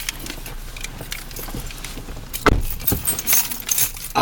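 A run of clicks and rattles, like small objects being handled, with a heavier knock about two and a half seconds in.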